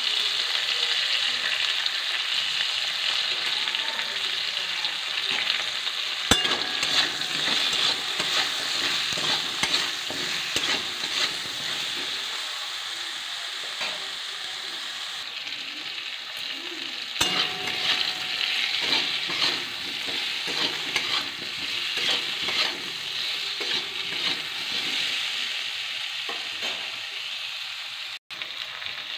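Eggplant and potato pieces sizzling in hot mustard oil in a metal kadai while being stirred, the spatula scraping over the pan with a couple of sharp knocks.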